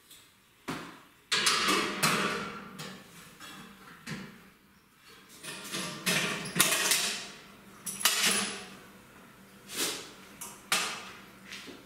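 Stainless steel vat lid and its fittings clanking as they are handled and set in place: an irregular series of sharp metallic knocks, some ringing briefly.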